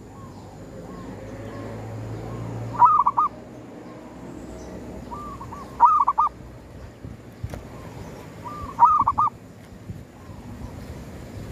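Zebra dove (perkutut) cooing in its trapping cage: three loud rolling coos about three seconds apart, each a short run of notes ending in a quick trill, with softer coo notes between them.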